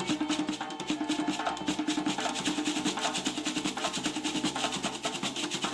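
Traditional Liberian dance drumming: drums playing a fast, steady rhythm of quick strokes.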